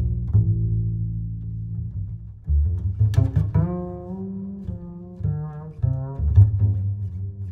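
Background instrumental music with a deep plucked bass line. Higher, held melody notes come in about three seconds in.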